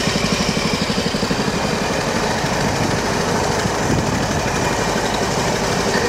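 Vintage motorcycle with a sidecar running along at a steady pace, its engine beating in an even, rapid chug.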